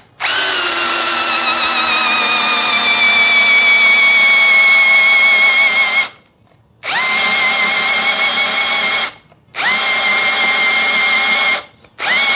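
Yasuka YID318 cordless brushless drill in low speed, boring a 19 mm auger bit into mahogany. The motor whines under load for about six seconds, its pitch sagging slowly, then stops. It is started again three more times in runs of about two seconds: the drill stops and starts a few times but gets through the wood.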